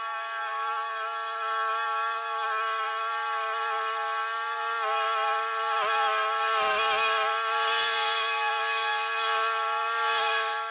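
Commercial walk-behind lawn mower running at full throttle, a steady engine drone. Its pitch sags briefly a few times past the middle as it bogs down chewing through a thick mat of grass clippings, with low thumps underneath.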